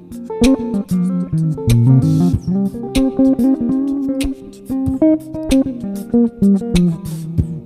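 Instrumental band music, with guitar and bass playing over a steady beat and no singing.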